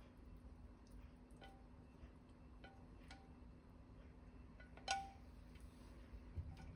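Faint clinks of wooden chopsticks against the pot and plate as noodles are pushed out onto the plate, each clink ringing briefly, the loudest about five seconds in. A soft low thump comes near the end.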